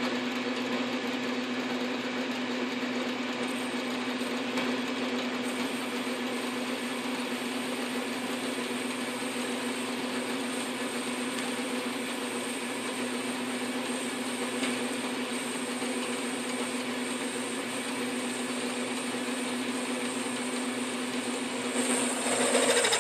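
South Bend 9-inch lathe running steadily with a constant hum, its tool cutting an aluminum pulley and throwing stringy chips. It grows a little louder shortly before the end.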